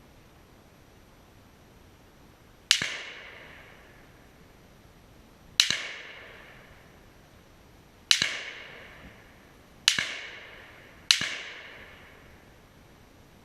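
Five gunshots at uneven spacing, each sharp crack trailing off in an echo over about a second.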